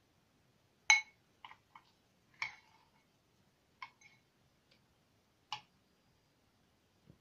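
Metal spoon clinking against a glass mixing bowl while stirring thick slime: several separate clinks, the first and loudest about a second in, the rest spread every second or so.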